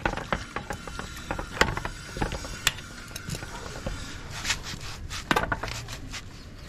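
Irregular light clicks and knocks, a few a second, from things being handled, over a faint steady background noise.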